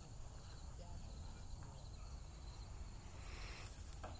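Insects chirping steadily at two high pitches over a low rumble, with a short rising high note about three seconds in.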